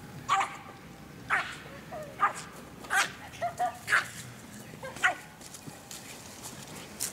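American Eskimo Dog giving short, sharp barks, about nine at uneven intervals.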